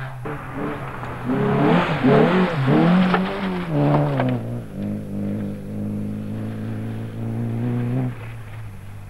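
Volkswagen Golf Mk2 rally car passing close on a dirt stage, its engine revving hard under a rush of tyre and gravel noise. It then settles to a steadier, slightly falling note as it drives away, dropping off about eight seconds in.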